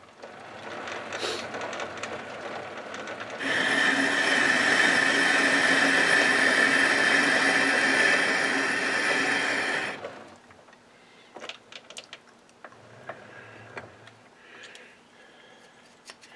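Metal lathe cutting an internal thread in a cast iron backplate: a steady pitched drone with many overtones starts a few seconds in, runs for about six seconds and stops. A few light clicks and taps follow.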